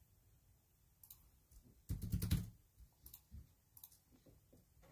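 Computer keyboard being typed on in short scattered clicks, busiest about two seconds in.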